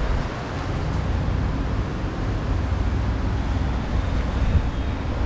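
Steady low rumbling background noise, with no distinct sound standing out.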